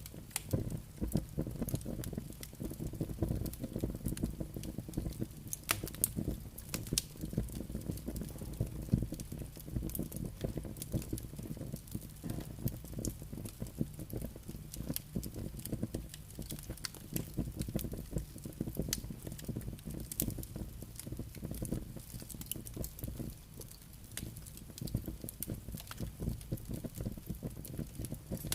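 Campfire burning, with dense, irregular crackles and pops over a steady low rumble of flames and wind.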